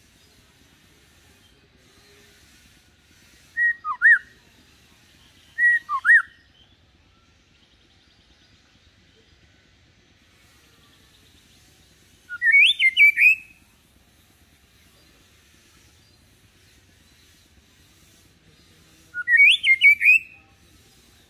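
Male white-rumped shama singing in four short whistled phrases with long pauses between them. There are two brief phrases of a few falling slurred notes about four and six seconds in, then two longer, quicker, higher phrases about twelve and nineteen seconds in. The bird is kept deliberately calm so its song stays unaggressive, as a lure to teach young shamas to sing.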